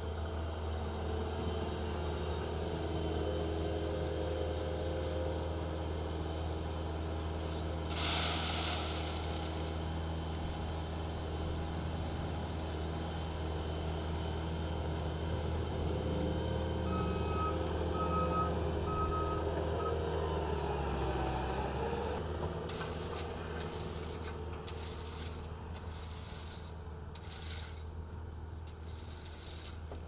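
Bobcat T750 compact track loader's diesel engine running steadily, with a loud hiss for several seconds about a quarter of the way in and its back-up alarm beeping a few times just past the middle. The engine fades after about two-thirds, leaving irregular scraping strokes of a hand tool on gravel.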